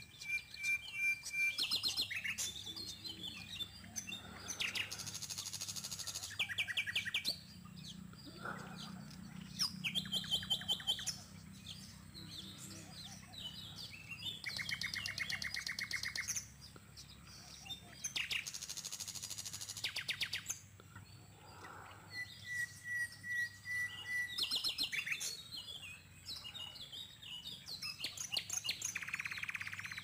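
Several wild birds calling around the pond: rapid chirping trills and rattles come and go, with a run of short, evenly spaced whistled notes about two-thirds of the way through. A faint, steady low hum lies beneath.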